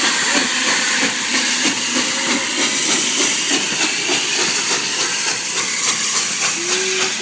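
Steam locomotive passing at close range, giving a loud, steady hiss of steam.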